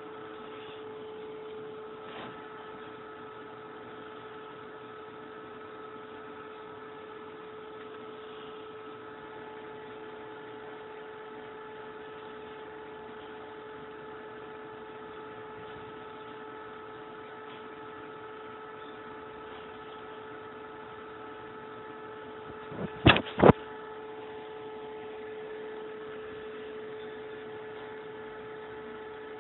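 A steady electrical hum with several fixed tones under it, with two sharp knocks in quick succession about three-quarters of the way through.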